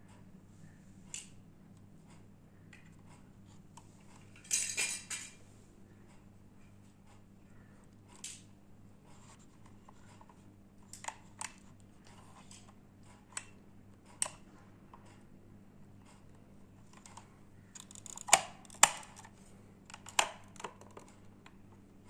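Small plastic toy pieces being handled: scattered light clicks and taps, a short rattle about four and a half seconds in, and a few sharper clicks near the end.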